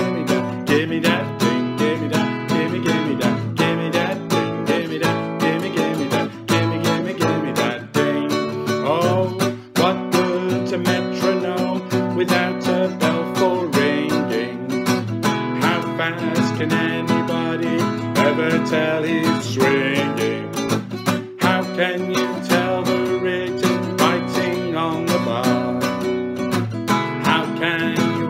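Acoustic guitar strummed in a steady rhythm, with a man singing a bouncy pop song along with it.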